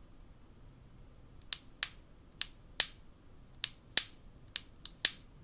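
Samsung Galaxy A5 home button pressed about four times, each press giving a pair of sharp clicks, press and release, starting about a second and a half in. The button is faulty: its click sometimes hangs and the button gets stuck.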